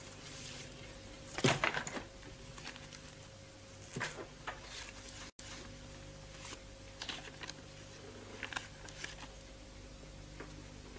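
Paper rustling and handling as letters and papers are sorted through by hand: scattered short rustles and crackles, the loudest about a second and a half in, over a steady low hum.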